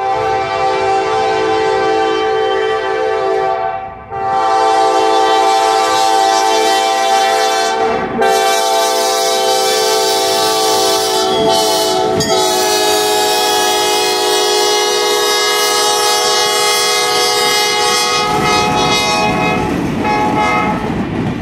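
Diesel locomotive's air horn blowing loud, steady blasts with short breaks about 4, 8 and 12 seconds in, then a last long blast as the locomotive passes. Near the end the horn stops and the passenger cars roll by with a low rumble of steel wheels on the rails.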